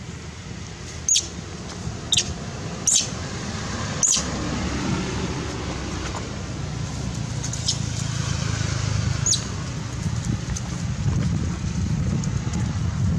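Low, steady rumble of wind on the microphone, with six short, sharp, high-pitched chirps or squeaks spread through the first nine seconds.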